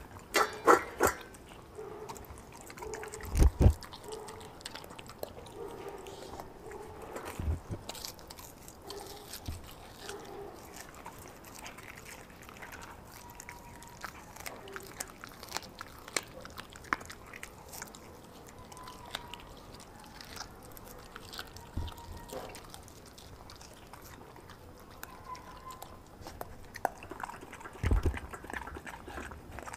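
A dog chewing and tearing at raw meat and chicken feet from a stainless steel bowl, with wet smacking and irregular crunching clicks. A few louder low thumps stand out, about three seconds in, around seven seconds in and near the end.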